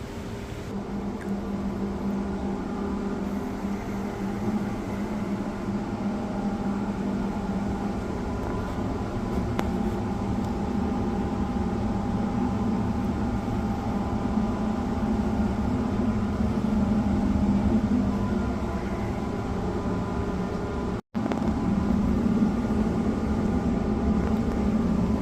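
Steady machine hum holding several even tones, growing slightly louder, with a brief cut to silence near the end.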